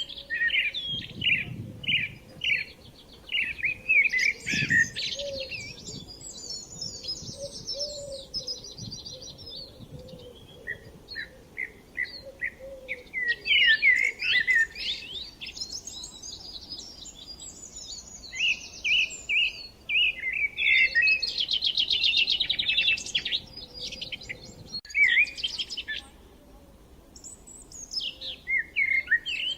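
Several songbirds singing at once in overlapping phrases: runs of short repeated chirped notes and rapid high trills.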